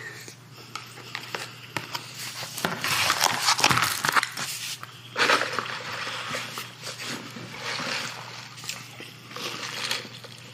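Wet chewing and lip-smacking close to the microphone, louder for stretches about three and five seconds in, over a steady low hum.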